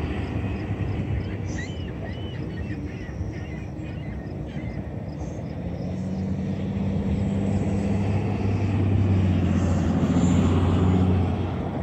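Passing motor traffic: a steady engine drone that builds from about halfway and drops off sharply near the end. A few short high chirps sound in the first few seconds.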